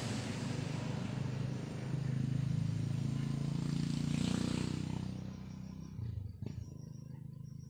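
A passing motor vehicle: a low engine hum swells between about two and five seconds in, then fades away. A single click near the end.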